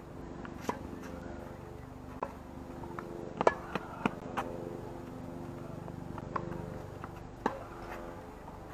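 Tennis rally: sharp pops of the ball off racket strings and bouncing on the hard court, irregularly spaced, with a quick cluster of them around the loudest hit about three and a half seconds in.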